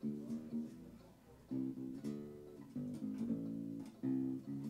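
Acoustic bass guitar plucked with the fingers: a string of separate low notes at an uneven pace, each starting sharply and dying away.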